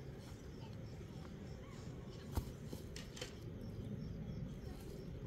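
Quiet outdoor ambience: a steady low rumble with a few faint clicks and knocks, the sharpest about halfway through, from hands working the bottom edge of a sack-cloth wall against stony ground.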